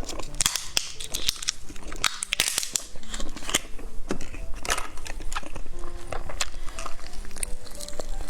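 Close-miked mouth eating soft gummy candies with a burst-open liquid filling: a dense run of sharp, wet clicks and crunches from biting and chewing.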